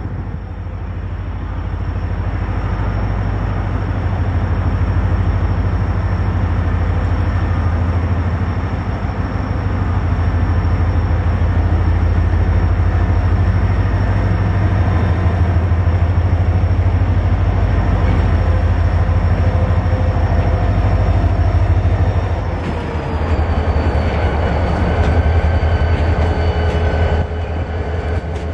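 Canadian Pacific diesel locomotive approaching at slow speed, its engine running with a steady deep rumble and a thin high whine. About 22 seconds in, the engine's pitch drops a little and stays lower.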